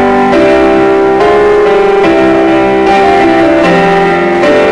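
Live musical-theatre song played on keyboard, sustained chords changing about every second.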